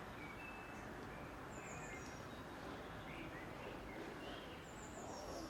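Outdoor background noise, a steady low rumble, with a few short high bird chirps scattered through it.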